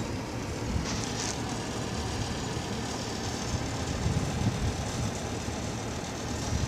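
Steady low roar of strong wind high overhead, which sounds like a hurricane, with a brief higher hiss about a second in.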